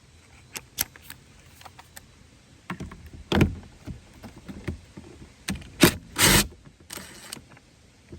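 Tool work on a Jeep door: scattered sharp clicks and knocks, with three short, louder bursts about a third, three quarters and nine tenths of the way through, as a 10 mm bolt is taken out with a socket.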